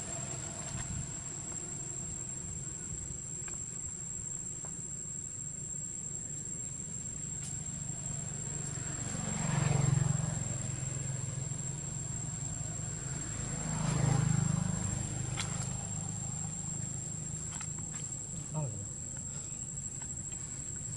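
A steady, high-pitched drone of insects over a low background hum. Two swells of louder noise rise and fall, one about ten seconds in and one about fourteen seconds in.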